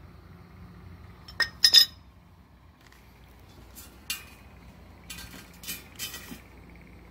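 Metal clanks and clinks of a pipe wrench worked on a propane tank's brass valve and set down on concrete: two loud, ringing clanks about a second and a half in, then a click and a run of lighter taps later on.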